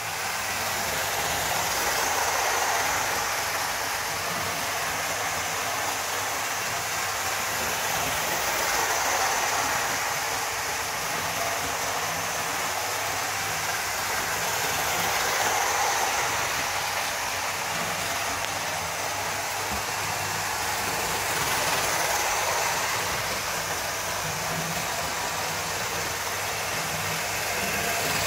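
Hornby model InterCity 125 train running round an oval of track: a steady motor whir and wheel noise on the rails, swelling and easing about every six and a half seconds as it laps.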